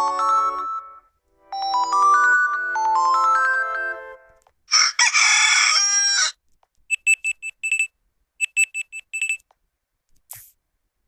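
Vsmart Live phone ringtones and alarm sounds played back one after another. A short melodic ringtone tune ends and plays again, then a rooster-crow alarm sound, then two quick runs of high electronic beeps, and a faint click near the end.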